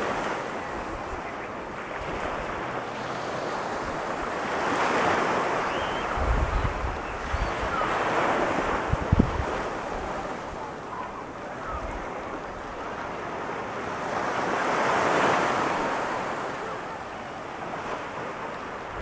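Ocean surf breaking and washing up on a sandy beach, a steady rush that swells louder three times as waves break. Wind gusts buffet the microphone with low rumbles in the middle.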